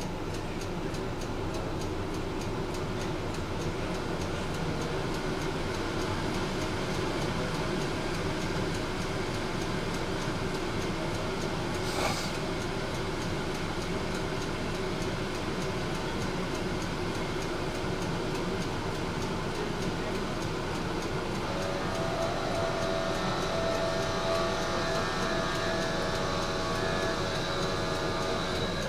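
Tram running on its rails: a steady rumble from the wheels and motors, with a single sharp click about twelve seconds in. Near the end a whine of several steady high tones joins in.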